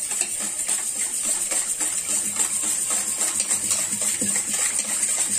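Wire whisk beating a thin mix of sugar, oil and milk in a stainless steel bowl: rapid, even strokes of wire clicking against the metal with a wet slosh, several a second.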